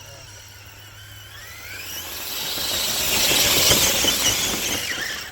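Traxxas TRX-4 RC crawler on Deep Terrain Traxx tracks running in high speed: the electric motor's whine rises in pitch as it speeds up, and the rattling rush of the tracks over the ground grows louder through the middle, then cuts off suddenly at the end.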